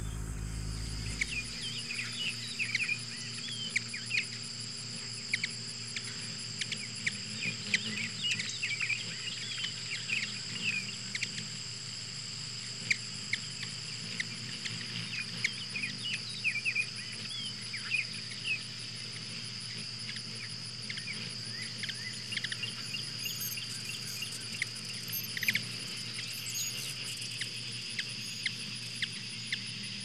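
Insect chorus with a constant high trill, overlaid by many short, sharp chirps scattered throughout.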